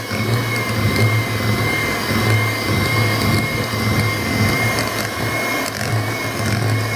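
Electric hand mixer running at a steady speed, its beaters creaming butter and dark brown sugar in a glass bowl. The motor gives a steady high whine over a low hum.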